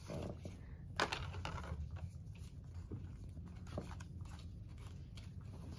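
Trading cards being handled and slid through the hands: soft scrapes and light clicks of card stock, with one sharper tap about a second in.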